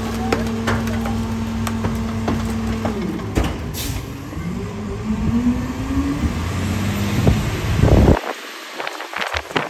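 Garbage truck running: a steady engine hum that shifts about three seconds in and then climbs in a rising tone, with scattered knocks and clanks and a brief hiss about four seconds in. The low rumble cuts off suddenly near the end.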